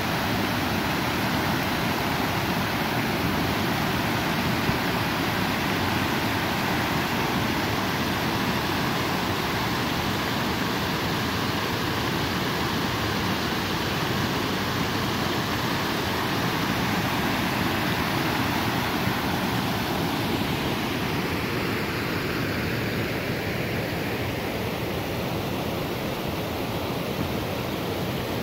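Jane Brook Falls' water rushing over the rocks: a steady, fairly loud hiss that changes colour slightly and eases a little about two-thirds of the way through.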